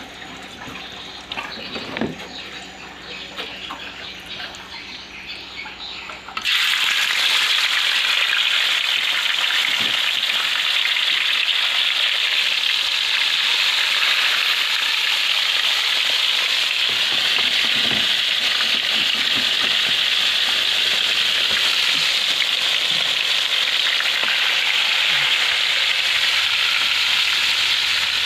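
Pieces of climbing perch (papuyu) frying in hot oil in a pan. A few light clicks and knocks for the first six seconds, then a sudden start of loud, steady sizzling that holds.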